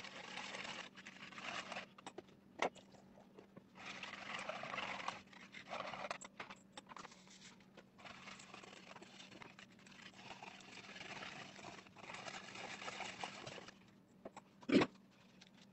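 Wire hand whisk beating chocolate cake batter in a plastic bowl: faint swishing and scraping strokes that come and go in patches, with a couple of sharp clicks, one near the end. The dry cake mix is being worked into the milk until the batter turns smooth.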